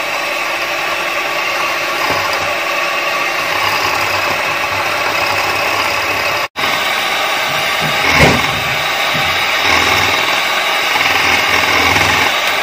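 Electric hand mixer running steadily at a raised speed, its beaters whipping coffee powder, sugar and water into a thick, lightening paste in a glass bowl. The sound breaks off for an instant about halfway through, then carries on.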